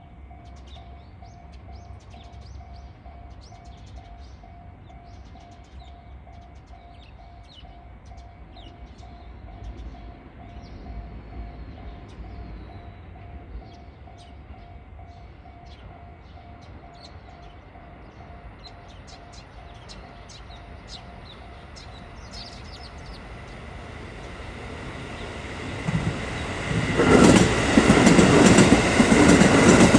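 A level-crossing alarm rings in a steady repeating tone while a JR KiHa 85 series three-car diesel multiple unit approaches; the train's diesel engines and wheels grow louder and it passes close by, loud, in the last few seconds.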